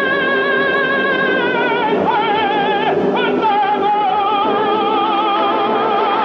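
Operatic singing, one voice holding long notes with wide, even vibrato, stepping down in pitch about two seconds in.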